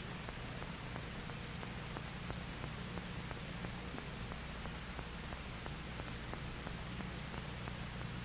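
Steady hiss with a low mains hum and faint scattered crackle: the background noise of an old film soundtrack.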